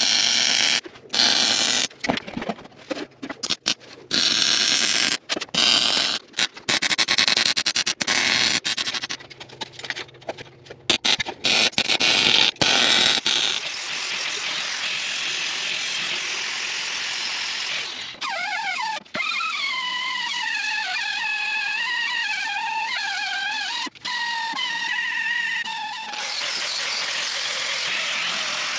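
MIG welder laying short stitch welds on a steel truck frame rail, crackling in loud bursts with brief pauses for about the first 13 seconds. Then an angle grinder runs steadily against the steel frame, with a wavering whine from about 18 to 26 seconds in as the disc bites.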